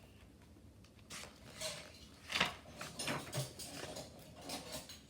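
Light handling noises: a string of irregular soft clicks, rustles and knocks, the loudest about halfway through.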